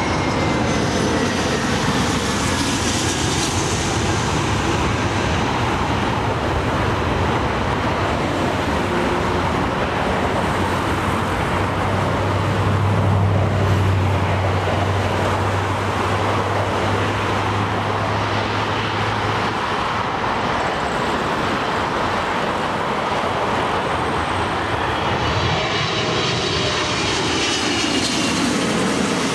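Continuous jet airliner engine noise, a steady loud rush. Near the end a Boeing 777 on final approach passes close overhead, its high engine whine sweeping down in pitch.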